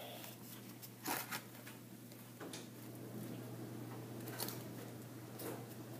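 Faint handling sounds of small art supplies being taken from a wooden case: a few soft clicks and rustles, the loudest a pair of taps just over a second in.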